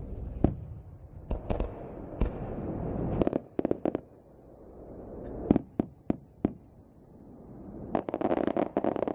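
Aerial firework shells going off: sharp bangs at first about a second apart, then a rapid cluster of many bangs near the end. Between the bangs a rushing noise swells up.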